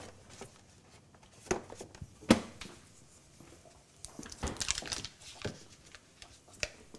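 Scattered knocks and clicks of items being handled in a kitchen, the loudest a single thump a little over two seconds in, with a quicker run of light clicks in the second half.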